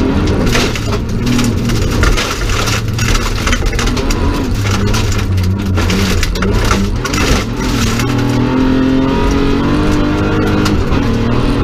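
BMW 325 rally car's straight-six engine heard from inside the cabin, revving hard on a gravel stage, its pitch climbing and dropping as it is shifted through the gears. Gravel spray and stones rattle against the underside throughout.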